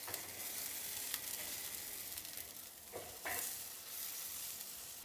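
Racks of pork ribs sizzling on the hot grate of a drum smoker as they are flipped over, with a few soft knocks about a second in and near three seconds.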